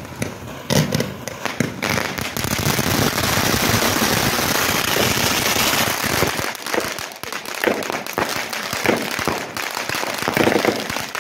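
Consumer firework (the 'Rainbow Rider') going off: a dense, continuous crackling hiss for several seconds that thins after about six seconds into separate sharp cracks, several a second.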